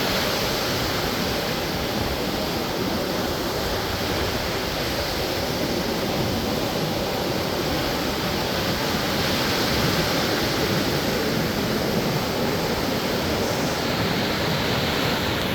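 Ocean waves and surf, a steady, continuous wash of breaking water with no distinct single wave crashes.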